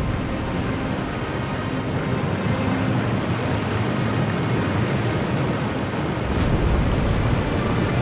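Steady rush of a waterfall pouring onto rocks and into the sea, with background music under it.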